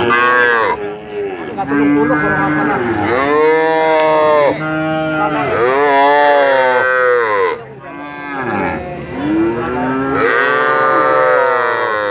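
Young cattle mooing: a series of about five long, drawn-out moos, one after another and partly overlapping, each rising and falling in pitch.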